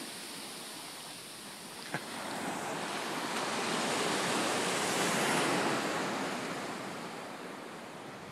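Gentle surf washing up onto a sandy beach: the rush of a wave builds to its loudest in the middle and then eases off as it recedes.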